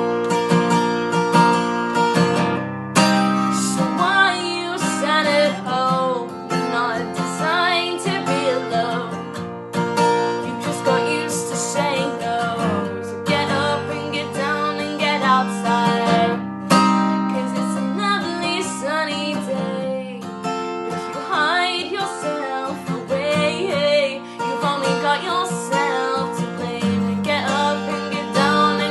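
Strummed acoustic guitar accompanying a woman singing a pop-folk song.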